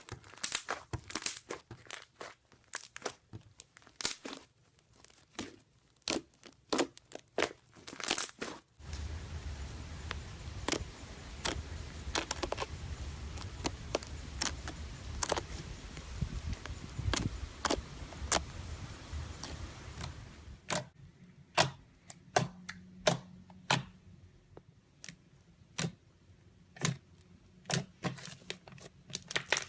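Slime being squeezed and stretched by hand, giving many sharp crackling pops and clicks. A steady low hum lies under the crackling through the middle stretch.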